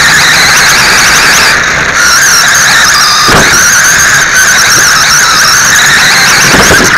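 Radio-controlled dirt late model car running laps, its motor and gears giving a loud high whine that rises and falls with the throttle, picked up by a camera on board the car.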